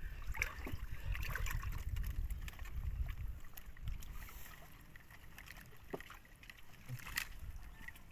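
Shallow water sloshing and splashing inside a net fish trap as people wade and trapped fish move in the crowded water. A low rumble fades out about three seconds in, and there is a sharp tick about seven seconds in.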